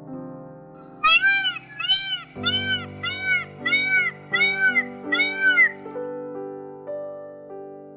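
Cat, likely a kitten, meowing repeatedly: a rapid string of short, high meows, each rising and falling in pitch, about one every two-thirds of a second, stopping about six seconds in. Soft background music runs underneath.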